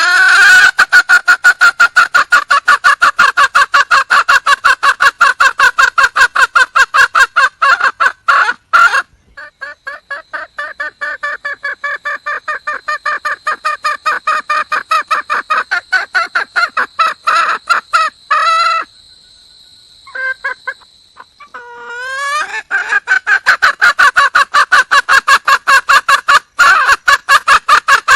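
Junglefowl hen calling to attract a male: a fast, steady run of clucks, several a second, that breaks off twice, once briefly about a third of the way in and again for a couple of seconds after the middle, then resumes loud. A thin steady high whine runs under the middle stretch.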